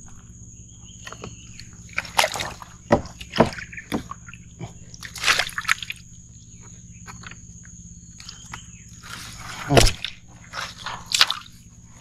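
Irregular wet splashes and sloshes of water, several short ones and a louder one near the end, over a steady high-pitched whine.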